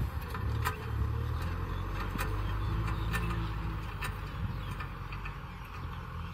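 Kubota M6040SU tractor's diesel engine running steadily under load while pulling a disc plough through soil, with scattered sharp clicks and clanks from the plough. The sound eases slightly as the tractor moves away.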